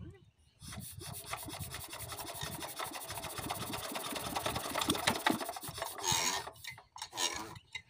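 Small single-cylinder diesel pump engine turning over with a rapid, even rasping clatter that starts about half a second in and stops about six seconds in, without catching: a hard-starting engine.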